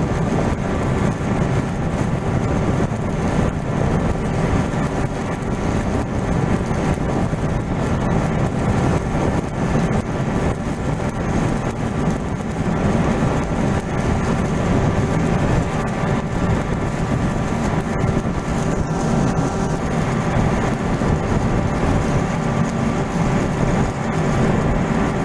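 Steady, loud drone of a running engine or heavy machinery: a constant deep hum with a fixed set of tones above it that neither rise nor fall.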